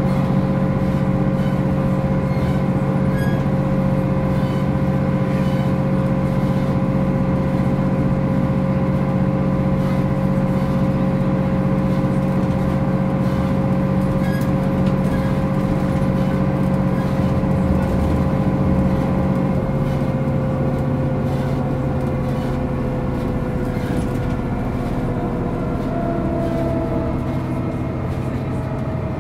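MAN NG 262 articulated city bus running, its diesel engine giving a steady drone with a thin whine over it. About twenty seconds in, the pitch sinks a little and the sound gets slightly quieter as the engine eases off.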